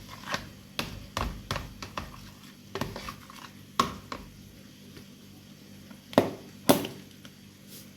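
Kitchen utensil knocking and clinking against a bowl as a soy sauce and ketchup sauce is stirred: a run of short knocks about two a second, a quieter spell, then two louder knocks near the end.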